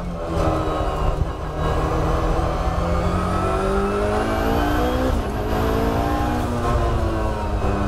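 Race car engine heard from inside the cabin under hard acceleration, its pitch rising through second gear. There is a quick upshift to third about five seconds in, and the engine then climbs toward 7000 rpm.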